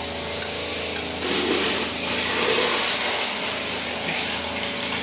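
An engine running steadily in the background. About half a second in there is a single short click, and from about a second in to about three and a half seconds a louder rough, hissing noise rises over the engine.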